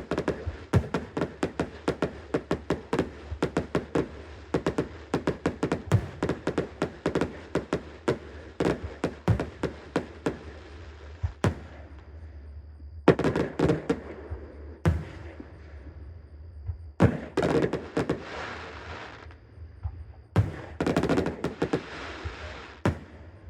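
Fireworks going off: a rapid barrage of bangs, several a second, for about the first half. Then come separate volleys of bangs, each trailed by a crackling hiss.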